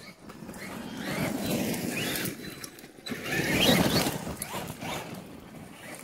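Traxxas Maxx RC monster truck's brushless electric motor revving under full throttle, its whine rising and falling in pitch, with tyre noise over gravel. It comes in two surges, the louder one about three and a half seconds in.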